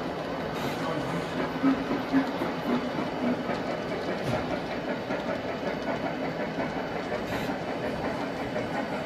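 Model train cars rolling past on the layout track: a steady running rumble of wheels and motors, with a few short clicks.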